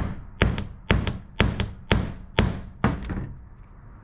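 Claw hammer striking a steel hole punch, driving it through a Hypalon rubber strip on a small cutting pad: seven sharp metallic strikes, about two a second, which stop a little under three seconds in.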